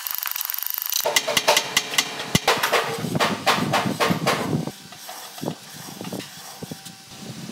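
Rapid metallic knocking and clanking of steel tools on a loader's steel wheel hub, with a thin high hiss in the first second. About five seconds in, the knocks thin out to occasional quieter clanks.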